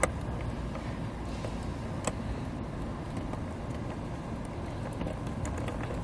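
Small metal latch parts being handled by hand: a sharp click right at the start, another about two seconds in, and a few faint ticks as the cam blade and screw are fitted onto the back of a compartment-door thumb latch. A steady low background rumble runs underneath.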